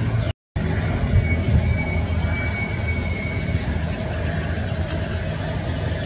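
Steady low rumble, engine-like hum, that cuts out for an instant near the start, with a faint thin high whistle held for a couple of seconds.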